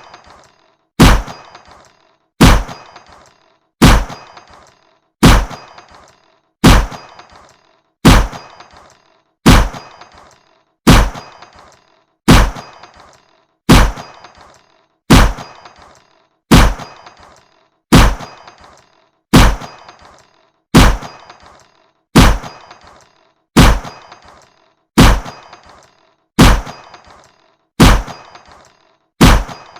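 Fair shooting-gallery gun firing over and over, evenly about every second and a half: each a sharp shot with a short metallic ring that fades away.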